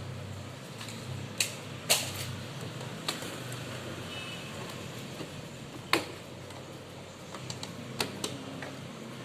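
Scattered sharp clicks and taps of tools against the plastic and metal parts of an all-in-one PC being taken apart, about half a dozen over a few seconds, with a steady low hum underneath.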